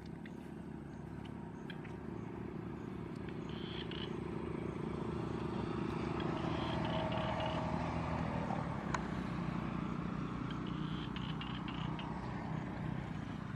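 A motor engine running in the background, a steady low hum that grows louder toward the middle and eases off a little near the end. A few faint high chirps are heard over it.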